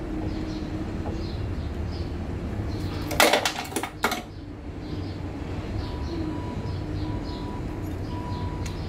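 A short clatter of small metal parts clinking together, about three seconds in, lasting about a second, over a steady low hum.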